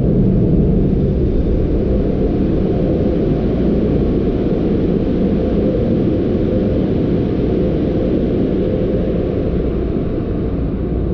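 Steady, muffled rumble heard from inside a car's cabin as it leaves a car-wash tunnel, easing off slightly near the end.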